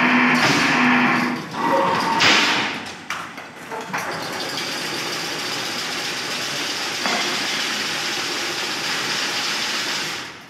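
Motor-driven chain-link fence weaving machine running, a steady mechanical whirr. A held low tone sounds over it in the first second and a half, and it is uneven with louder knocks until about four seconds in.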